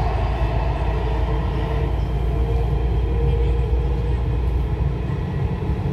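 Driverless Dubai Metro train running at speed, heard from inside the front car: a steady low rumble of wheels on rail with a faint steady hum above it.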